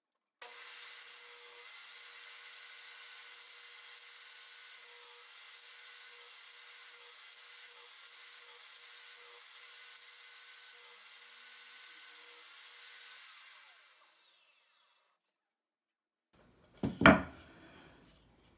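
Table saw running with a steady whine while its blade cuts through a wooden leg post held upright in a sled jig; the sound dies away about fourteen seconds in. Near the end, a single loud wooden knock.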